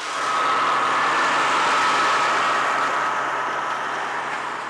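Snowmobile engine running at speed as it drives past towing a sled, growing louder just after the start and fading away through the second half.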